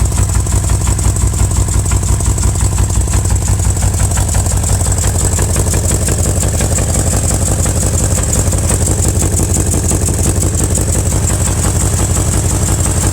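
2000 BMW M5's V8 engine idling steadily with a regular, rhythmic knock from the bottom of the engine, a knock whose cause is still being tracked down.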